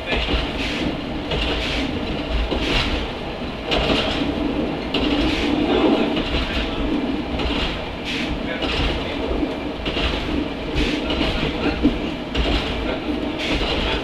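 NOHAB 100 series diesel railbus running along the track: a steady diesel drone with the clicking of the wheels over the rails about once or twice a second.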